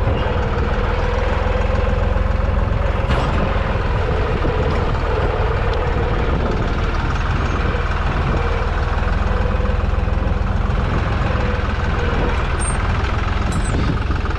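Deutz-Fahr 55F tractor's engine running steadily at working speed while it pulls a cultivator between crop rows, with a constant low rumble and a slightly wavering whine.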